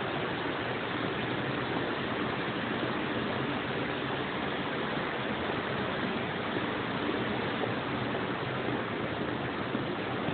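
Steady rushing noise with no distinct sounds standing out.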